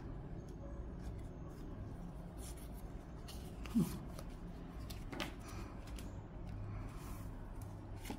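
Tarot cards being handled and laid down on a wooden table: soft slides, taps and rustles of card stock, over a low steady hum. One brief, louder sound stands out a little before halfway.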